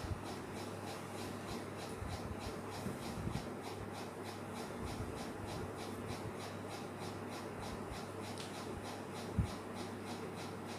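Fingers rubbing and scrubbing aloe vera gel into the skin of the face, a soft steady rubbing over a low hum, with one short thump near the end.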